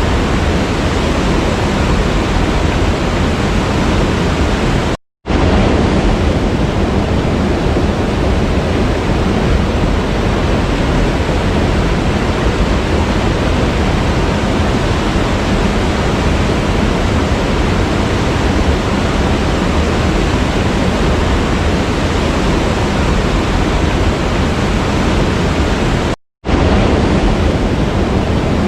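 Waterfall rushing in a steady, dense roar of falling water. It cuts out to silence for a split second twice, about five seconds in and near the end.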